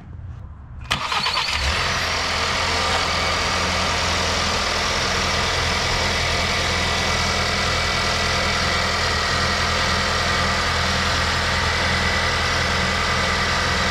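Ford Maverick's 2.0L EcoBoost turbocharged four-cylinder engine started about a second in, then idling steadily, heard from beneath the truck. This is its first start on fresh oil just after an oil change.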